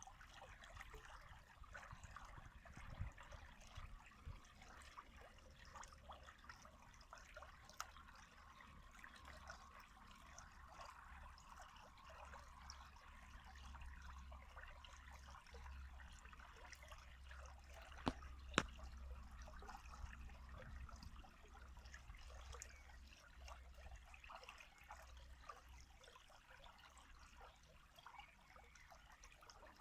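Faint running water trickling steadily, with a low rumble underneath and a couple of sharp clicks a little past the middle.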